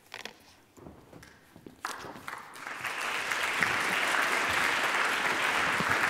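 Audience applause, building up about two and a half seconds in and then holding steady. Before it come only a few faint knocks and rustles.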